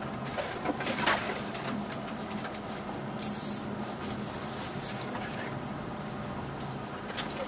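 Subaru Forester's flat-four engine humming steadily at low speed, heard inside the cabin, with a few sharp knocks and rattles as the car bumps along a snowy track, the loudest about a second in and again near the end.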